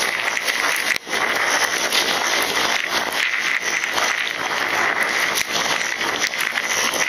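Steady hiss of rain and rushing air on a camera mounted on a moving motorcycle, with tyres spraying through water on a wet road. The noise drops out briefly about a second in.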